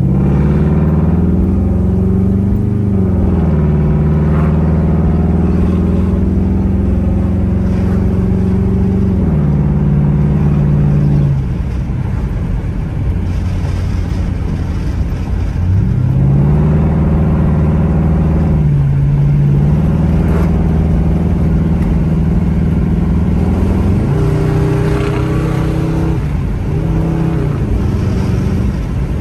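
Mercury Grand Marquis's V8 engine and 4R70W automatic transmission heard from inside the cabin while accelerating: the engine note rises and steps down as the transmission upshifts about 3 s in, eases off around 11 s, then climbs again from about 16 s with further upshifts near 19 and 24 s. The transmission is shifting normally with its newly replaced speed sensors.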